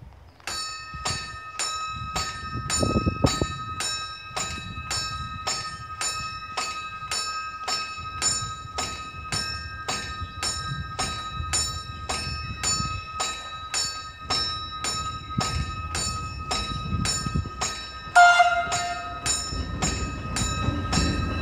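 Level-crossing warning bell ringing with even strikes about twice a second, starting about half a second in. About three-quarters of the way through, a short horn blast from the approaching narrow-gauge electric train is the loudest sound, and the train's rumble rises near the end.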